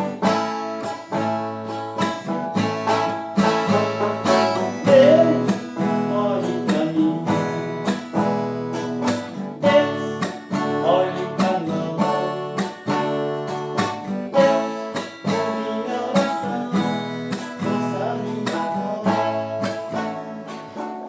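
Viola de buriti, a Brazilian folk viola made from buriti palm, playing an instrumental passage of a hymn, with plucked and strummed notes and a few sliding notes in the melody.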